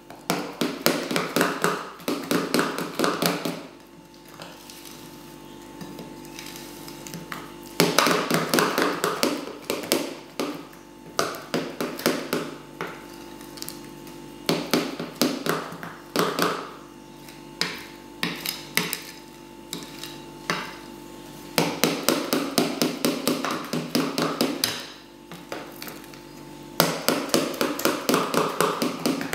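A metal utensil beating yogurt cake batter by hand in a bowl: fast, rhythmic clacks against the bowl's sides in bursts of a few seconds with short pauses between them.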